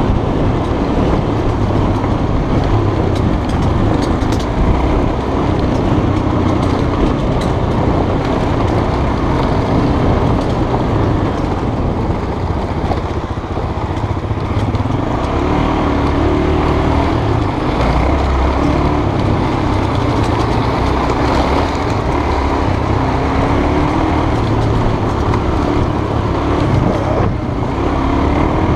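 Honda trail motorcycle's single-cylinder engine running as the bike rides over a rough dirt track, its pitch rising and falling with the throttle partway through.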